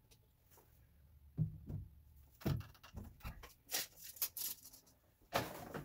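PVC drain fittings and a can of pipe cement being handled and set down on plywood and joists: a string of knocks and clicks, then a short scraping rustle near the end.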